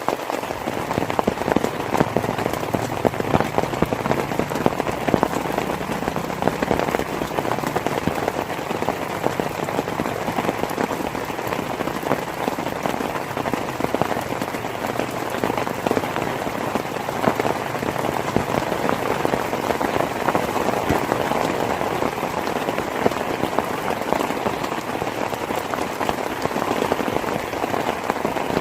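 Heavy rain falling steadily, a dense patter of countless drops striking a surface.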